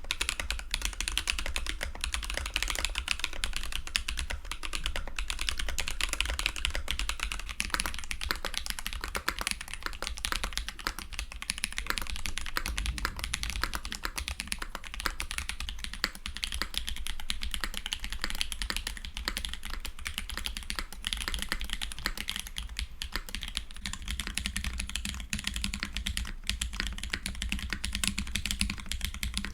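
Continuous fast typing on custom mechanical keyboards fitted with Holy Panda tactile switches, played as four back-to-back samples. It begins with Glorious Pandas on an acrylic Alice-layout board. About 7 s in it changes to Drop Holy Pandas on a Polaris, about 15 s in to Holy Trash Pandas on the Polaris, and about 24 s in to Holy Polar Pandas on a Keycult No. 1/60.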